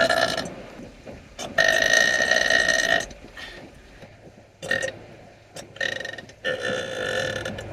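A person burping several times in a row. A burp trails off just after the start, a long loud one runs from about a second and a half in for about a second and a half, and a string of shorter burps follows in the last three seconds.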